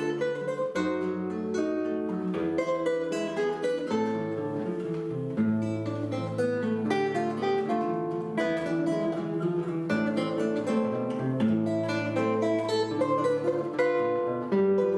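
A duet on plucked string instruments playing a continuous run of plucked notes over held lower notes.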